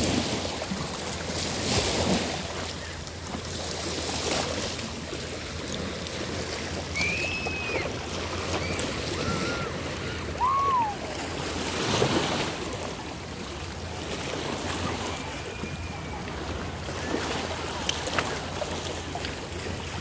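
Small choppy bay waves lapping and washing at a sandy shore, swelling and easing every few seconds, with wind buffeting the microphone. A few brief high tones come in around the middle.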